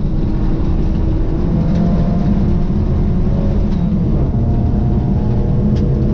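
Rally car engine running hard at speed, heard from inside the stripped, caged cabin over the rumble of tyres on gravel. The pitch rises a little in places with the throttle.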